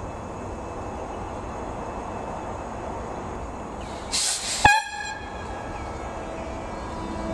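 Irish Rail 8520 Class DART electric train approaching, a steady low rumble. About four seconds in comes a brief burst of hiss, then a short, high horn toot that dies away within half a second.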